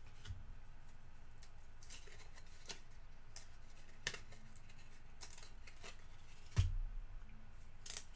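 Trading cards being handled and flipped through by hand: scattered soft clicks and flicks, with one duller thump about six and a half seconds in.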